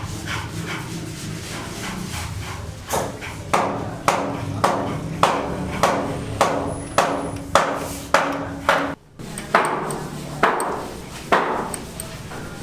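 Hammer blows on a building site, struck steadily about two a second, each with a short ring, starting about three seconds in over a steady low hum.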